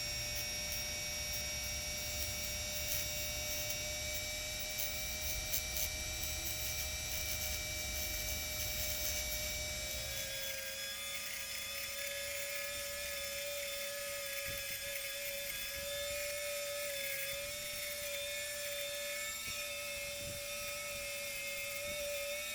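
Small rotary tool spinning a diamond cutting wheel with a steady high-pitched whine as it cuts the overhanging glass lip off an Apple Watch screen. About halfway through, the pitch shifts slightly and starts to waver, and the low rumble underneath drops away.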